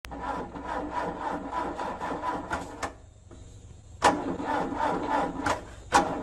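A car making a rough, rhythmic mechanical grinding noise in two bursts, each about two to three seconds long and starting suddenly: a fault noise of the kind that calls for a mechanic.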